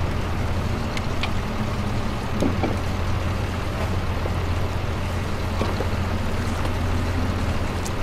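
A small fishing boat under way: the steady low hum of its motor over water rushing past, with a few light knocks as the gillnet and floats are paid out over the side.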